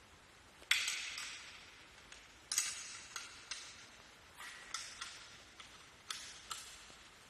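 Sharp metallic clinks and ticks, about seven at irregular intervals, as bolts on a steel roller bracket are tightened to fix its width. The loudest come about a second in and about two and a half seconds in.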